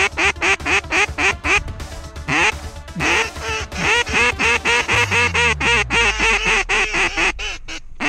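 Rapid run of duck quacks, about five a second in a steady rhythm, with a brief break about two seconds in. A faint low hum falls in pitch from about five seconds in.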